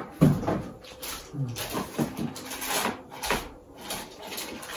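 Clear plastic packaging bag crinkling and rustling in irregular bursts as it is pulled off a mixer grinder jar.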